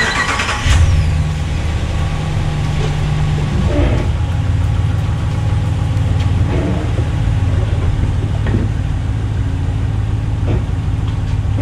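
Ram 1500's 5.7 L Hemi V8 starting up and running at a steady idle. A short noisy burst of cranking comes in the first second, and the engine settles to a smooth idle with a few faint knocks over it.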